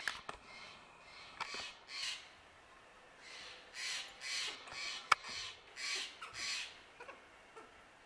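A bird giving a run of short, harsh, raspy calls, several in quick succession in the middle, with a few sharp clicks, the loudest about five seconds in.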